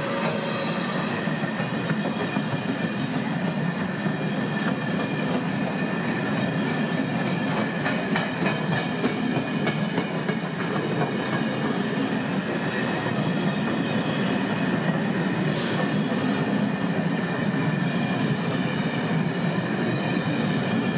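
A freight train's empty log-stake wagons rolling past, wheels running over the rails in a steady rumble with scattered clicks and a faint high ringing.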